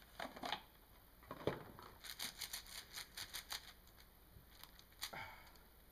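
Plastic clicks and scrapes from an 8x8 puzzle cube being handled and turned, with a quick run of sharp clicks about two seconds in. The cube turns stiffly; its tension is set too tight.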